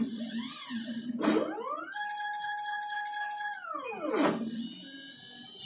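Stepper motors of a DIY CNC thermocol cutting machine whining as the gantry moves: a steady pitched whine glides down as the axes slow to a stop, a click at the turnaround, then glides back up as they speed up again. This happens twice, and near the end the whine is fainter.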